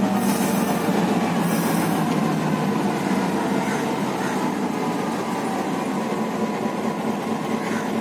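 EMD G12-type diesel locomotive (Sri Lankan Class M2c) running with a steady low drone that fades slowly, with two short hisses near the start.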